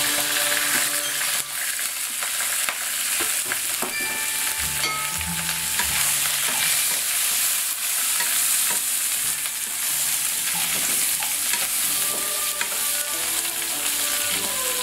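Bok choy, garlic and ginger sizzling in hot oil in a wok, stir-fried with a wooden spatula that scrapes and taps against the pan now and then.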